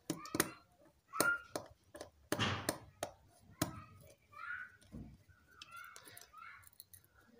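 Small screwdriver working the screw terminals of a digital thermostat board as wires are fastened: scattered sharp clicks and taps with short scraping rubs, the loudest in the first few seconds.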